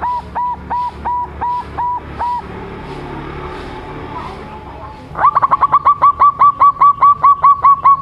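Young zebra dove (perkutut) calling in runs of short, clipped notes, each swooping up and then held briefly. About eight notes come in the first couple of seconds, then a pause of nearly three seconds, then a louder, faster run of about fifteen notes.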